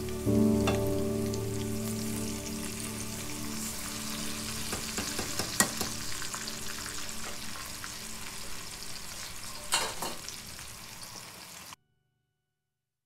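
Sliced onions sizzling as they fry in oil in a nonstick pan, stirred with a plastic slotted spatula, with a few sharp knocks of the spatula against the pan. The sizzling cuts off abruptly about a second before the end.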